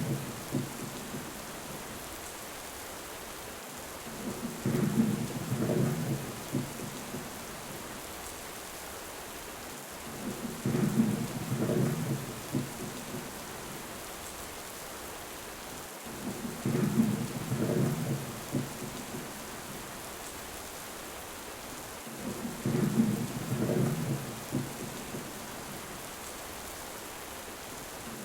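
Thunderstorm: steady heavy rain with low rumbles of thunder rolling in about every six seconds, each swell much the same as the last.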